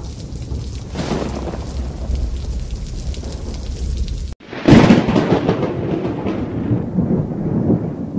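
Thunderstorm sound effect: steady rain over a low rolling rumble, then after a brief cut about four seconds in, a sudden loud thunderclap that rumbles on and slowly fades.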